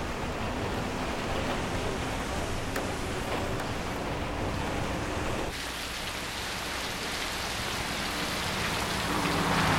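Steady rain noise inside a bus, with a faint low engine hum. About five and a half seconds in it changes to rain and the hiss of a car's tyres on a wet road, growing louder near the end.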